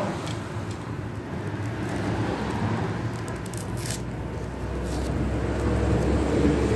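Hands handling and tearing open a plastic-wrapped paper mailer, rustling and crinkling with a few sharp crackles, over a steady low rumble.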